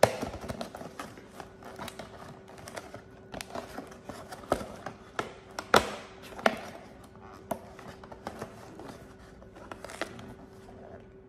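Food and kitchen utensils being handled: irregular clicks, taps and light knocks, with a few sharper knocks around the middle, over a faint steady hum.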